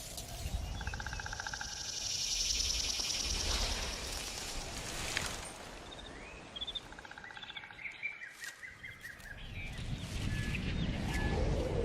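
Outdoor nature ambience of animal calls: rapid pulsing trills come in short bursts, followed by a run of short bird chirps about halfway through, over a steady background hiss.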